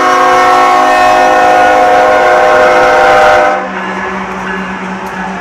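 Union Pacific diesel locomotive's multi-chime air horn sounding one long, loud blast that cuts off about two-thirds of the way in. The locomotive's engines then run on with a steady low hum.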